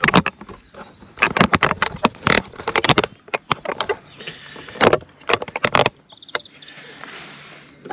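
Close handling noise from a camera and fishing gear being grabbed and moved: a run of irregular knocks, clicks and rattles for about six seconds, then a steady hiss near the end.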